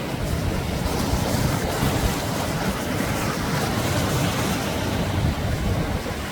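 Sea waves breaking and washing up on a beach: a continuous surf rush, strongest in the low rumble.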